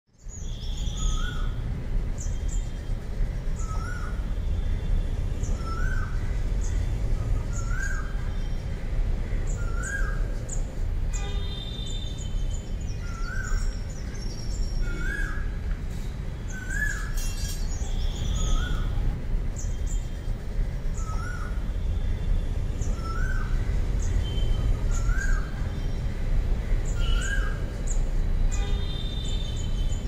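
Birds calling over a steady low rumble: one bird repeats a short rising note about every second and a half, with higher chirps and whistles scattered above it.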